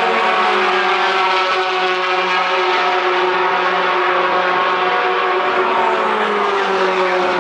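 A pack of racing pickup trucks running flat out in a line, their many engines blending into one loud, steady drone of several overlapping pitches. The pitches shift slowly and dip slightly near the end as the pack turns away.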